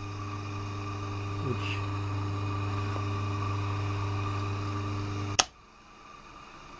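Lathe's single-phase electric motor switched on after rewiring to reverse its direction, running with a steady mains hum. It is switched off with a sharp click about five and a half seconds in.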